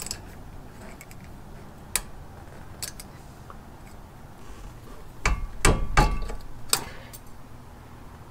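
Light metallic clicks and scrapes of a hand tool working a cotter pin out of an upper ball joint's castle nut. A cluster of louder knocks with a brief metallic ring comes about five to six seconds in.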